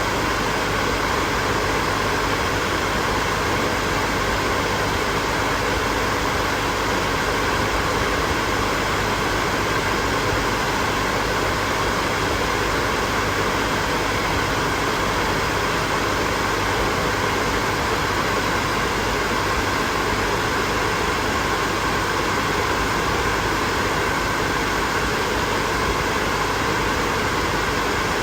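Electric hair dryer running continuously: a steady rushing of air with a faint motor hum, unchanging throughout.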